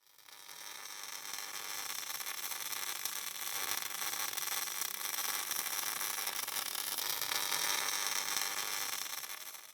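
Steady high-pitched hiss with no low rumble, fading in over the first second and fading out near the end.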